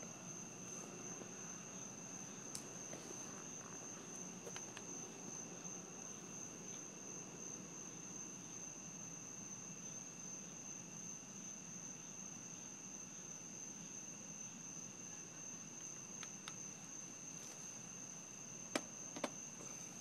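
Crickets trilling at night in one high, unbroken tone. A few sharp clicks come through, two louder ones close together near the end.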